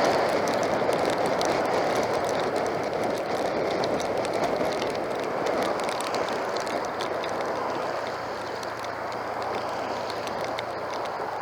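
Rushing wind and wet-road tyre noise from a two-wheeler ridden through heavy rain, easing off gradually as it slows over the last few seconds.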